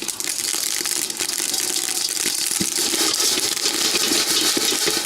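Unhulled rice popping in a hot, dry pan with no oil: a dense, steady crackle of many small pops.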